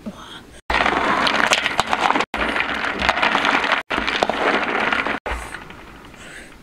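Water at a hard rolling boil in a large metal wok with duck eggs and snails in it: a loud, dense bubbling hiss. It starts about half a second in, breaks off sharply twice and stops about five seconds in.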